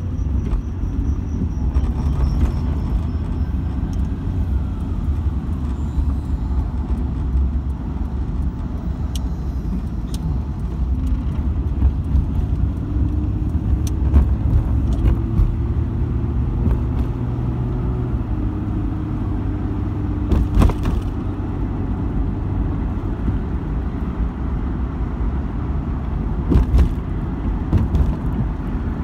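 Car driving, heard from inside the cabin: a steady low rumble of engine and road noise, with a faint engine note that climbs slowly through the middle. A few short sharp bangs stand out, the loudest about two-thirds through and another near the end.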